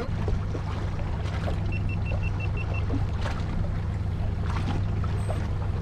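Fishing boat's engine idling with a steady low hum while water splashes against the hull. About two seconds in comes a quick run of seven short, high beeps.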